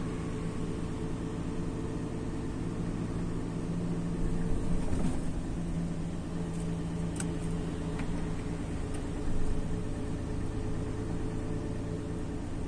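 Renault Trucks lorry's diesel engine running steadily while cruising, a constant low drone heard from inside the cab, with a few light clicks near the middle.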